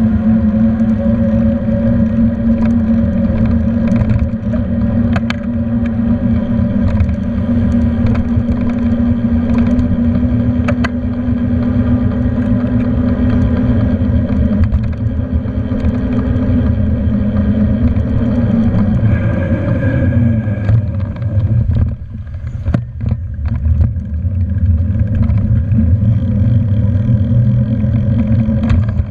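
Riding noise from a moving bicycle picked up by a camera mounted on the bike: a steady hum over road rumble and wind on the microphone, with a few light rattling clicks. About two-thirds through, the hum glides down in pitch and dips as the bike slows.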